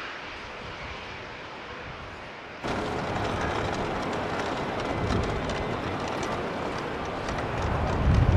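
Airport apron sound: a steady jet engine noise from a taxiing airliner, then, after a sudden cut about two and a half seconds in, louder apron noise with a low rumble that swells near the end.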